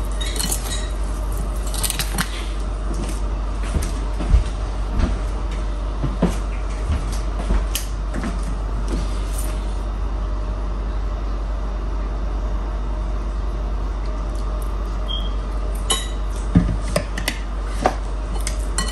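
Occasional light clinks and taps of kitchen utensils and dishes over a steady low hum, with fewer taps in the middle.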